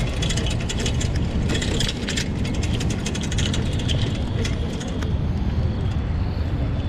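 Shared bicycle rolling over a dirt path: a dense, irregular rattling and clicking from the bike and its front wire basket over a low rumble of tyres and wind. The clicking stops about five seconds in, leaving the rumble.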